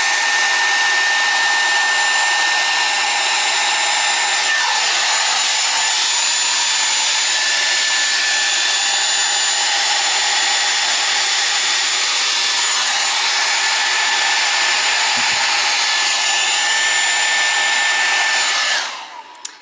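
Hair dryer running steadily, a rush of air with a high, even motor whine, used to blow wet acrylic paint across a canvas; it is switched off near the end.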